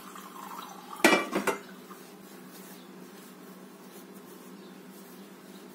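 A metal mixing bowl knocking and clattering as dough is kneaded in it by hand: a quick cluster of about three knocks about a second in, then only a faint steady hum.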